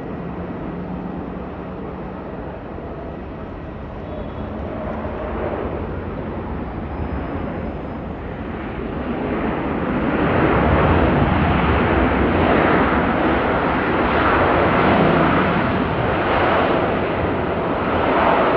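Boeing 747 jet engines heard from a distance as it lands, a steady rushing noise that grows clearly louder about halfway through and stays loud, with slow swells.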